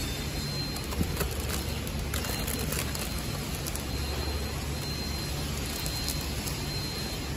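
Cup-packing machine running: a steady low mechanical hum that swells and eases about once a second, with a faint high whine and scattered sharp clicks, the loudest about a second in.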